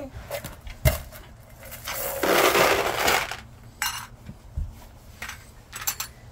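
Hard clinks and knocks of rocks and a rock-tumbler barrel being handled: a sharp knock about a second in, then a rattling scrape lasting about a second, then a few lighter clinks.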